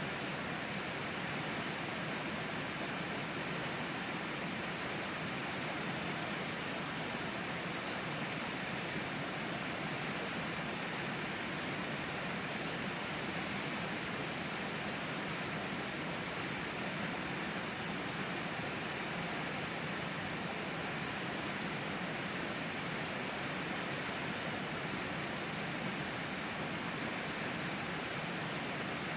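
River water flowing: a steady, even rush of noise, with a thin steady high-pitched tone over it.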